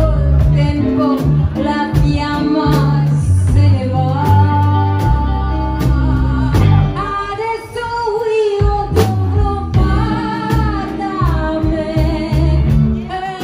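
Live rockabilly band playing: a woman singing a melody over upright double bass, drums and hollow-body electric guitar, with a steady beat of drum hits.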